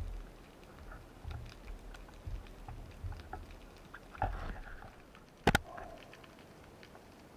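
Underwater sound picked up by a diver's camera: scattered small clicks and crackles with a few low thuds, and one sharp, loud click about five and a half seconds in.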